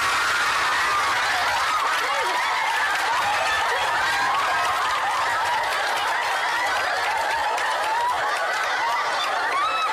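Studio audience laughing: many voices overlapping in one long, unbroken wave of laughter.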